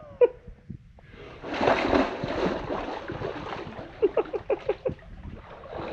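A person dropping into a deep pool of water: a splash about a second and a half in, then water sloshing, with a quick run of short plops about four seconds in.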